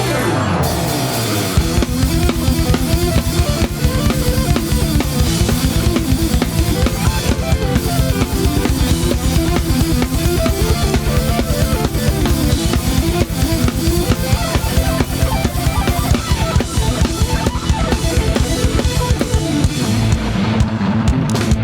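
Drum kit played along with backing music: a fast, steady run of bass drum and snare strokes. A falling sweep in the music opens the passage, and the bright high end thins out near the end.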